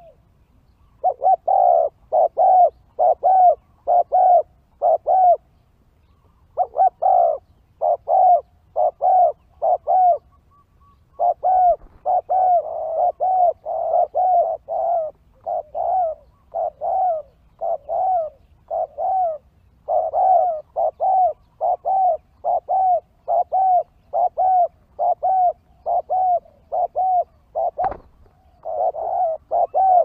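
Spotted doves cooing: long runs of short, repeated coos, about two a second, pausing briefly twice in the first ten seconds and then carrying on almost without a break. A single sharp click comes near the end.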